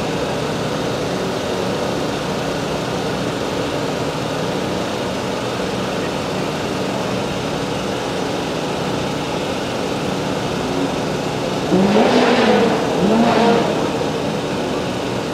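Truck engine idling steadily, revved briefly twice near the end, the pitch rising and falling each time.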